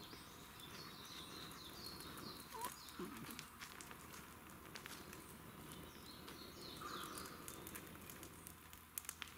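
Quiet outdoor ambience at dusk. A bird gives repeated short falling chirps, and scattered faint clicks and crackles come from a small fire. About seven seconds in there is a soft breathy puff.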